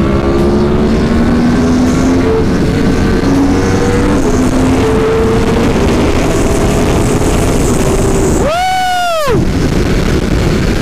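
2018 Yamaha R1's crossplane inline-four running hard under way, its note climbing in steps as it pulls through the gears over wind rush. Near the end the revs rise sharply and drop again.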